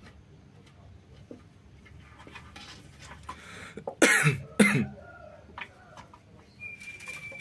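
Two loud coughs in quick succession, a little over half a second apart, about four seconds in. Around them, faint scattered taps from kittens scuffling on a wooden stool.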